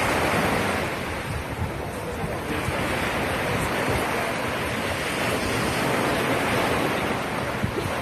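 Surf washing on the shore as a steady rushing noise that swells and eases, with wind buffeting the microphone.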